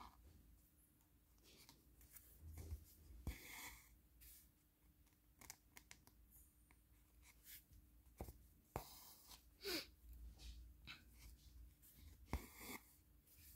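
Faint, scattered taps and soft rustles of diamond-painting work: a drill pen setting resin drills onto the adhesive canvas, with occasional handling of the tray and packaging.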